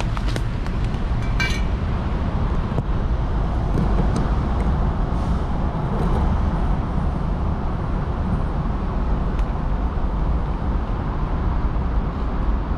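Steady low rumble of city traffic noise, with a brief high-pitched sound about one and a half seconds in.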